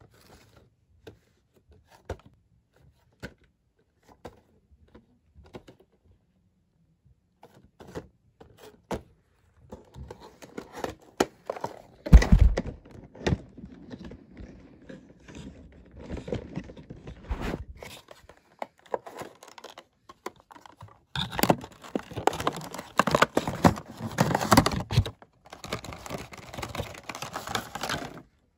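A cardboard Funko Pop box and its clear plastic window insert being handled and opened by hand: scattered light taps and clicks at first, a heavy thump about twelve seconds in, then a long stretch of scraping, tearing and crinkling of cardboard and plastic.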